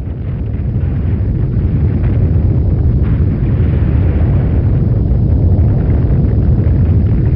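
Loud, deep rumbling roar that swells over the first second and then holds steady.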